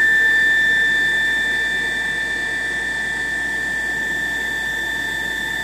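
micRo CNC router's stepper motors driving the pen carriage along its lead screw at a constant rapid speed, a steady high-pitched whine as the machine runs back to its home position.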